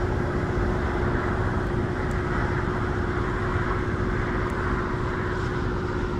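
A vehicle engine running steadily, a constant droning hum with a low rumble underneath.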